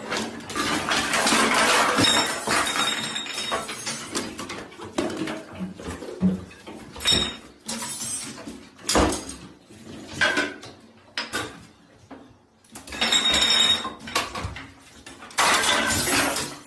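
Clattering and clinking of small household objects being knocked over and falling, in a run of uneven knocks and bursts, as cats knock things off a bathroom counter.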